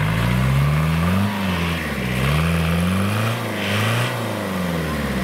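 Mini tractor engine revving up and down about three times, the pitch rising and falling in turn.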